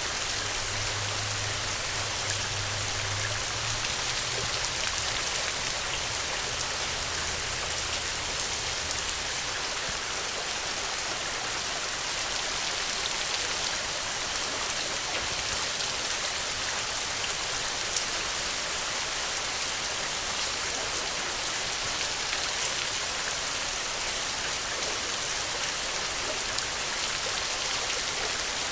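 Steady rain falling, a continuous even hiss with scattered drop ticks. A low hum lies underneath at first and fades out about nine seconds in.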